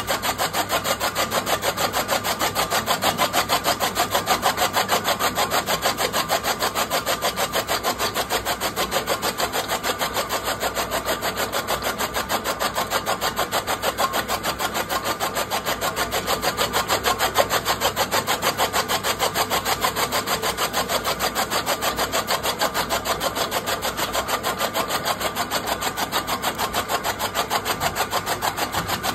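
Electric chaff cutter running, its blade flywheel chopping fodder stalks fed into it in a fast, even, steady rhythm.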